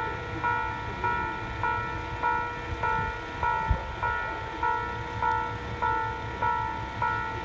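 Japanese level-crossing alarm ringing its electronic bell in a steady rhythm, a little under two strokes a second.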